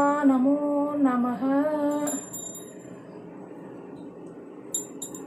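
A woman's voice singing a slow, held devotional melody that stops about two seconds in. A small brass puja hand bell rings briefly as the singing ends and again in a short run of strikes near the end.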